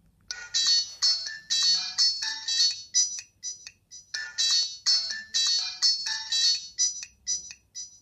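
Alcatel 10.16 feature phone previewing one of its built-in MIDI ringtones through its speaker: a quick melody of short notes, with the phrase played twice.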